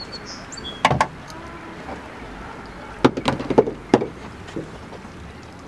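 Clicks and knocks of screws and hand tools being handled while interior trim is screwed back into a car: a couple of sharp knocks about a second in, then a cluster of clattering knocks between three and four seconds in.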